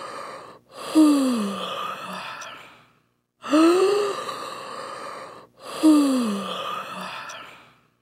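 A person yawning aloud: a voiced yawn whose pitch rises, breaks briefly, then slides down. The same yawn is heard twice in a row.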